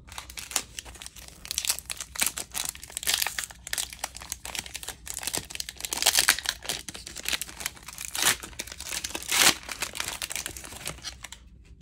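Wrapper of a 2009-10 Upper Deck SP Authentic hockey card pack being torn open and crinkled by hand: continuous crackling and rustling, with louder crackles about six and nine and a half seconds in.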